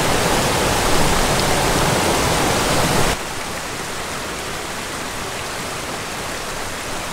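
Mountain stream rushing and splashing over boulders in a steady rush of water. About three seconds in it cuts abruptly to a quieter, more distant rush.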